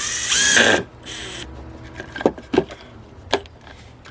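Makita DTD154 brushless impact driver given a short trigger pull with nothing in the bit: the motor whines up and back down within about half a second near the start. A few light, sharp knocks follow later.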